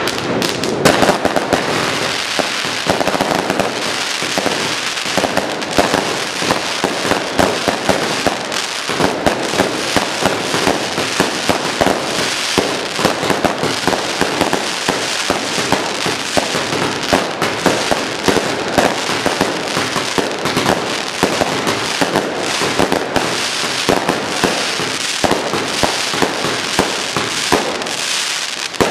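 Fireworks and firecrackers going off in a dense, unbroken barrage of overlapping bangs, pops and crackles.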